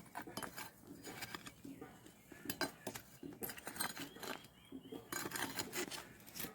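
Metal utensils clinking and scraping against cookware, in a run of irregular short knocks.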